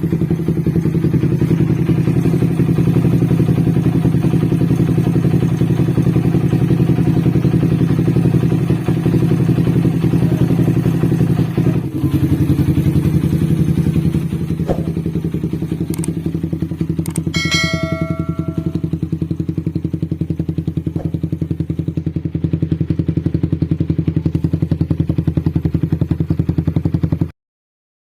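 Suzuki Satria FU 150's 150 cc single-cylinder four-stroke engine running steadily at an even speed, with a rapid, regular pulse. It cuts off suddenly near the end.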